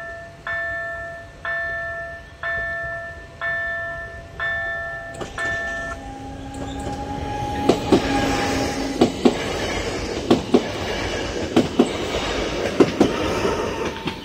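A level-crossing warning bell rings about once a second, then stops about five seconds in. A held tone sounds as a PESA Elf electric multiple unit draws near. The train then rushes past close by, its wheels clacking over the rail joints in regular pairs, one pair per bogie.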